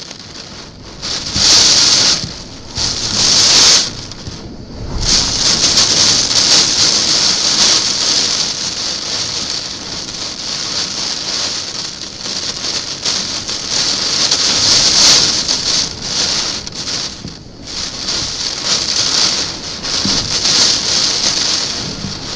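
Typhoon rain and wind: a loud, steady rush that swells and falls in gusts, dropping away briefly around four and seventeen seconds in.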